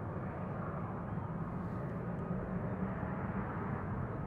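Jet engines of an Airbus A340-600 running on the runway: a steady, even jet noise with a faint thin whine.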